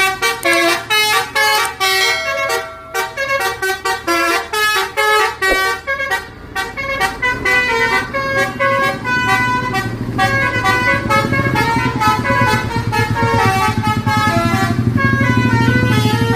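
A bus's Basuri 'telolet' musical horn playing a quick tune of short stepping notes, over the bus engine running low underneath, which grows louder in the second half.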